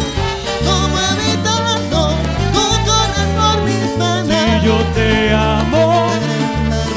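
Latin dance orchestra playing a salsa-style passage: a bass line stepping from note to note under several melody lines.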